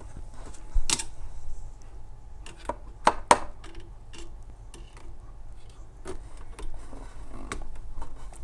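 Small metal clicks and taps from a hook tool working inside a Royal 202 typewriter, prying the drawband string off its U-shaped steel catch. The sharpest click comes about a second in and a close pair about three seconds in, with lighter ticks between.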